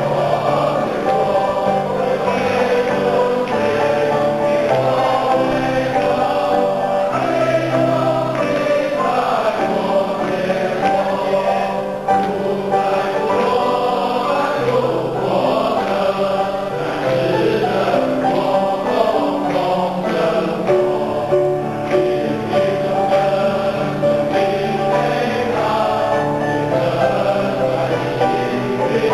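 A large congregation of mostly men singing a hymn together, accompanied by a grand piano.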